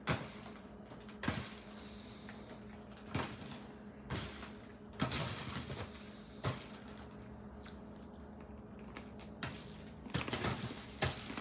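Dried pretzels dropped one at a time into a paper bag, each landing with a light papery knock, about one a second.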